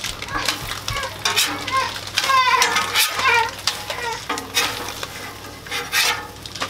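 A metal spatula scrapes and taps on a Blackstone flat-top griddle as pancakes are flipped, over the sizzle of frying. There are repeated short strokes throughout, and brief pitched sounds that rise and fall about two to three seconds in.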